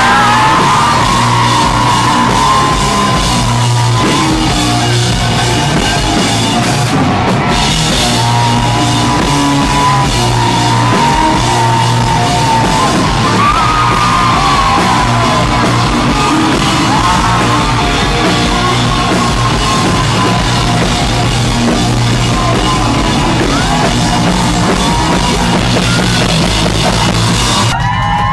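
A rock band playing loud and live, with drums, instruments and a sung, yelled vocal line wavering over the top. The band cuts off abruptly just before the end.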